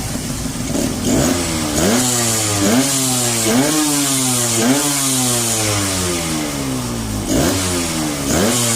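Freshly rebuilt Suzuki TRS two-stroke engine revved in quick throttle blips, its pitch jumping up sharply and sinking back about once a second, with a pause of a couple of seconds before the last two blips.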